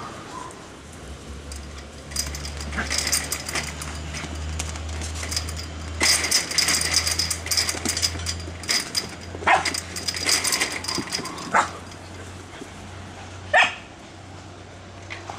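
Puppies playing and wrestling, with bursts of scuffling and three short barks in the second half, the last one the loudest.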